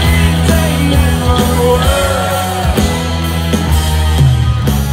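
Live rock band playing loudly with a singer's voice over a steady bass line and regular drum beats.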